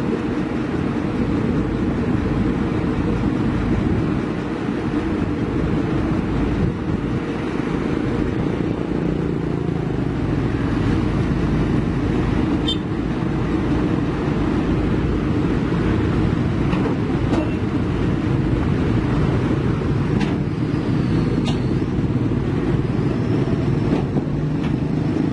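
Heavy diesel engine running at a steady idle, with motorbikes passing near the end.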